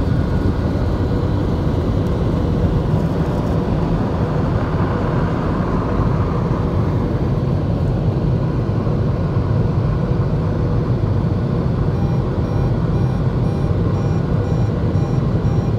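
WashTec SoftLine 2 car wash side dryer blowers running, a loud, even rush of air from the fan motors. A faint beep starts repeating evenly about twelve seconds in.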